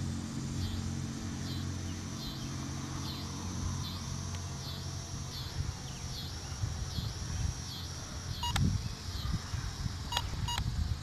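Multirotor drone's motors and propellers heard from its onboard camera, with a high whine that rises and falls over and over. A low hum gives way to gusty wind rumble on the microphone about four seconds in. A few sharp ticks come near the end.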